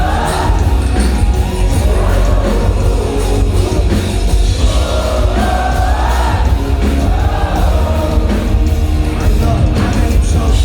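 A rock song performed live by a band at high volume, with voices singing a drawn-out melodic line over it. A heavy bass dominates the mix.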